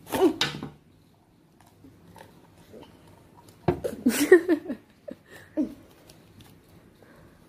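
A boy's short wordless vocal sounds, with a sharp knock about three and a half seconds in, over faint rustling as he opens a folded paper chit.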